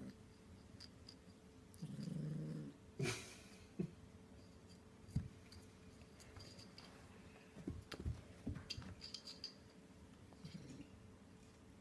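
A kitten growling low while it plays with a yoyo, one growl of under a second about two seconds in and a fainter one near the end. A short noisy burst follows the first growl, then scattered soft knocks and clicks from the yoyo and paws on the carpet.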